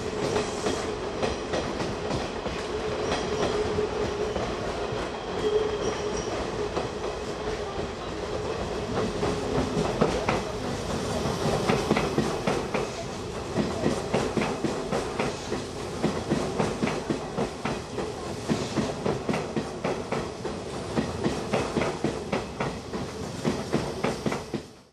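Electric commuter train running past on the tracks, with a steady whine over the running noise in the first half and wheels clacking over rail joints and points about twice a second in the second half.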